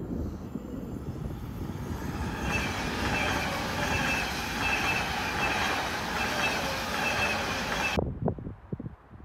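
SBB electric passenger train passing at speed: a growing rumble becomes a loud rushing of wheels on rail, with a pulsing high hiss and squeal about every two-thirds of a second as the coaches go by. The sound cuts off abruptly near the end.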